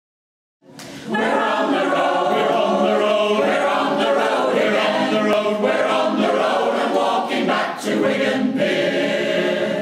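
Choir singing, coming in about a second in after a moment of silence.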